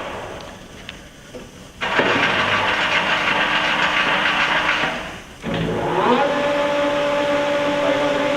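LeBlond-Makino engine lathe being shifted to a higher spindle speed: the running sound dies down, a dense hissing whir starts suddenly for about three seconds and cuts off, then the drive spins up with a rising whine and settles into a steady hum at the higher speed.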